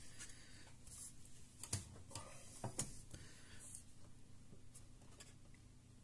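Faint handling noise from a graphics card being turned over in the hands, with a few light clicks and taps against its plastic shroud and board.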